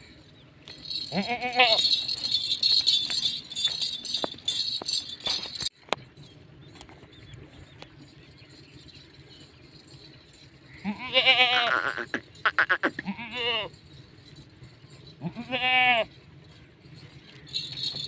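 A goat bleating four times, each call wavering in pitch: one about a second in and three more between about 11 and 16 seconds in. A high jingling comes in the first few seconds, between the first and second bleats.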